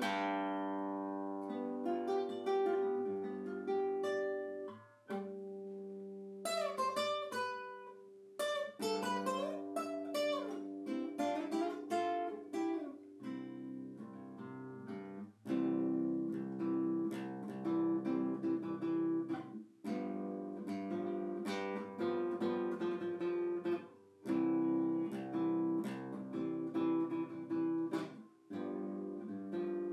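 Solo classical guitar playing: single plucked notes that ring and waver in pitch, then denser chords from about halfway, with short pauses between phrases.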